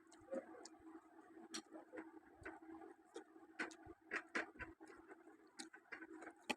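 Faint, irregular clicks and smacks of someone eating, over a steady low hum.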